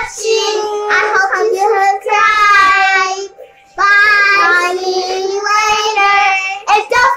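Young girls singing together in long drawn-out notes, with a short pause about three seconds in.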